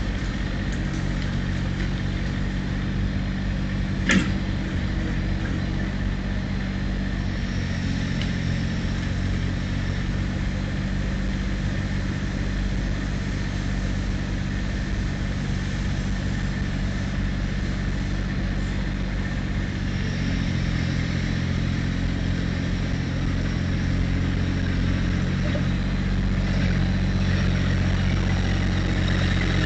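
Massey Ferguson compact tractor's engine running steadily, with a single sharp click about four seconds in. The engine note shifts a couple of times and grows a little louder near the end as the tractor comes closer.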